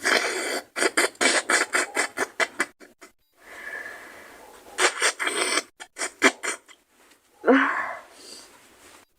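A woman sniffing quickly and over and over in short, sharp breaths through the nose, with a second run of sniffs about five seconds in. About seven and a half seconds in comes one short voiced burst.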